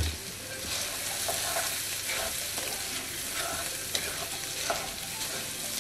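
Orzo and chopped vegetables sizzling steadily in olive oil in a frying pan, stirred with a wooden spoon that scrapes lightly now and then; the orzo is toasting as it soaks up the oil.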